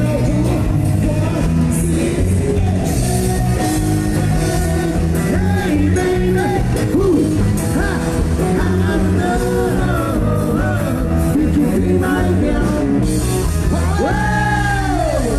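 A live band plays loud amplified dance music with several singers. Near the end one voice holds a long high note that slides down.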